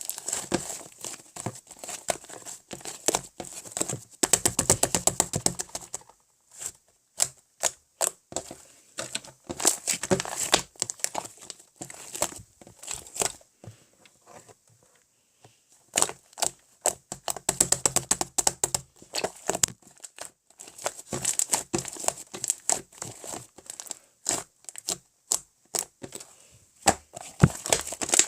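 Slime being squished and stretched by hand, giving dense runs of small sticky clicks, pops and crackles, with a quiet pause of about two seconds around the middle.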